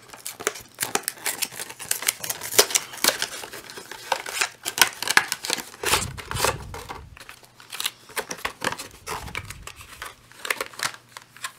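Plastic shrink wrap crinkling and tearing as it is peeled off a cardboard trading-card deck box, in quick irregular crackles. The box is handled with a few dull bumps about halfway through and again near the end.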